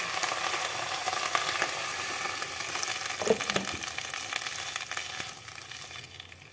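Chopped mustard greens sizzling in hot oil in a pot, stirred with a plastic spatula as a little water is poured in at the start; the sizzle dies down near the end.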